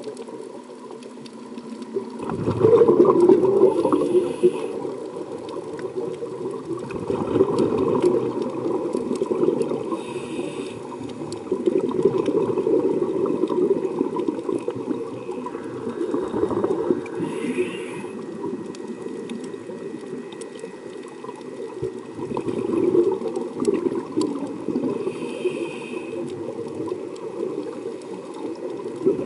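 Scuba diver breathing through a regulator underwater: a short hiss on each inhalation and a bubbling rush on each exhalation, in a slow regular cycle about every seven seconds.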